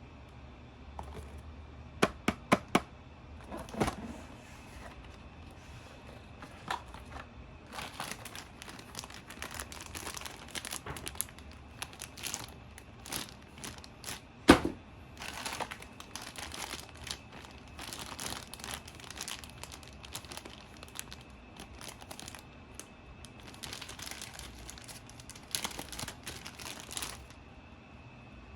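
Packaging being handled and unwrapped: crinkling and tearing in stretches. There is a quick run of four sharp clicks about two seconds in, and a single louder knock about halfway through.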